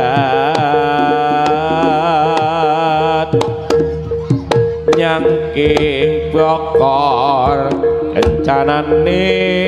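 Javanese jaranan accompaniment music: a wavering, ornamented melody line over sharp hand-drum strokes and one steady ringing tone held underneath.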